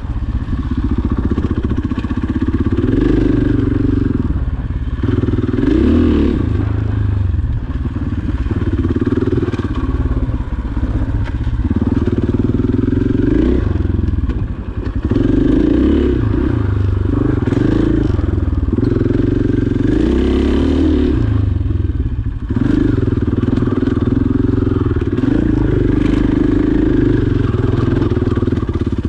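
KTM 500 EXC single-cylinder four-stroke dirt bike engine pulling along a trail, the throttle opening and closing every second or two. The engine briefly lets off about halfway through and again a little later.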